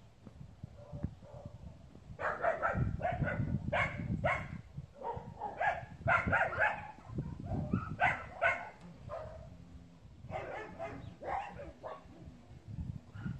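Dog barking, a run of short barks in clusters that starts about two seconds in and stops shortly before the end.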